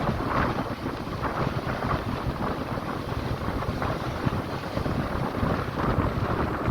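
Sea surf washing on a shore, in repeated swells of hiss, under a steady low rumble of wind buffeting the microphone.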